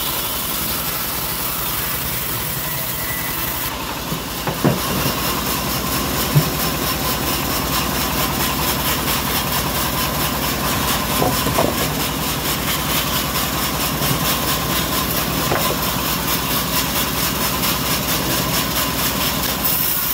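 Homemade bandsaw mill running steadily as its blade rips along an old teak log, with a few short knocks partway through.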